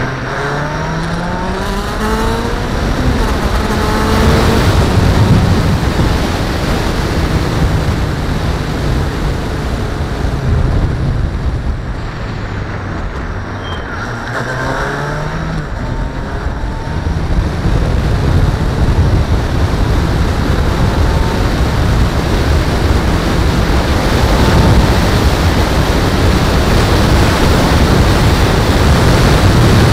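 Car driving through town: the engine climbs in pitch and drops back with each gear change as it picks up speed, twice, over steady tyre and wind noise that grows louder as the speed builds.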